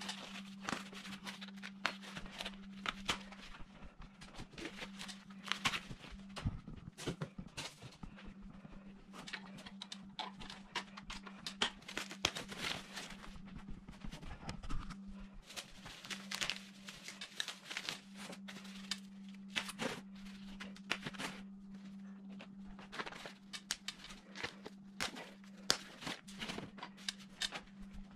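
White foam packing wrap being pulled off a bike frame, crumpled and tossed into a cardboard box: irregular rustling, crinkling and tearing, over a steady low hum.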